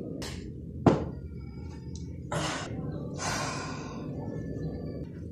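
A man sitting down on the floor and pulling on his sneakers: one sharp knock about a second in, then two breathy rustles of movement and breath, over a steady low hum.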